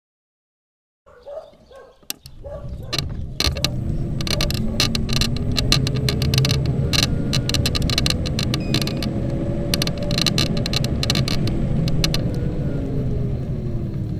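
Xiaomi Mijia M365 electric scooter being ridden, starting about a second in: a faint hub-motor whine that rises and falls over steady road and wind rumble, with many sharp creaks and clicks from the folding latch. The creaking is the noise of a dry, unlubricated folding mechanism.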